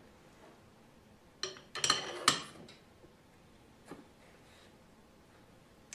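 A short cluster of metallic clinks and clatters as a soldering iron is set down into its metal bench stand, followed by one faint tap a couple of seconds later.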